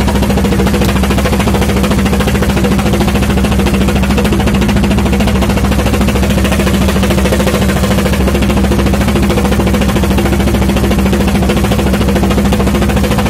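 A fishing boat's engine running steadily and loudly under way, a constant drone with no change in speed.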